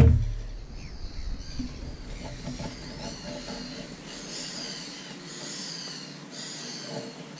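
Birds singing: many short, high, arching chirps repeating over and over, growing busier from about two seconds in. A brief knock at the very start.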